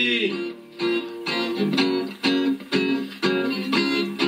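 Guitar music: the last sung note of a male voice fades in the first moment, then a guitar plays a run of plucked and strummed chords in a steady rhythm.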